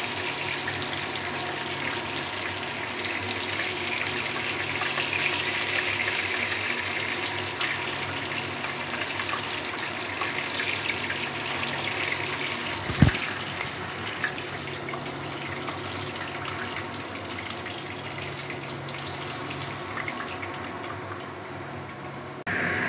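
Chicken pieces and oil sizzling in a kadai as they fry, a steady hiss, with one sharp knock about halfway through.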